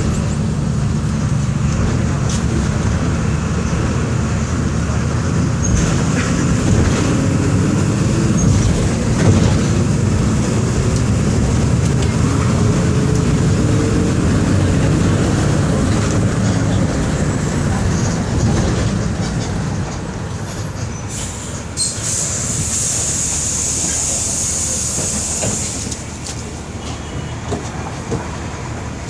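Volkswagen 17.230 EOD bus's diesel engine running with a steady low drone, mixed with rattling and clicking. A hiss sounds for about three seconds past the middle, and the overall sound eases down in two steps in the second half.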